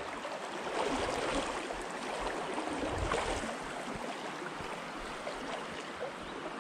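Stream current running steadily, a little louder about a second in and again around three seconds in.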